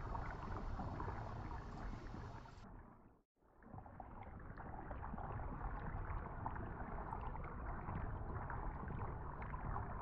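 Library sound effect of splashing, churning river water. It fades out to silence about three seconds in, then fades back in and runs on steadily with small splashes.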